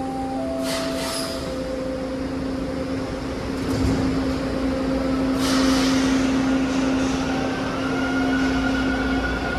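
TTC T1 subway train at the platform: the door chime sounds as a few steady tones stepping down in pitch, with a hiss. The doors close with a thump about four seconds in, a louder hiss of air follows, and a higher motor whine begins near the end as the train readies to leave. A steady low hum runs underneath.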